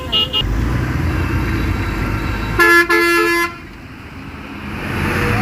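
Road vehicle horn honking: a short toot at the start, then a loud horn blast of about a second, briefly broken in two, over the low rumble of an engine and passing traffic.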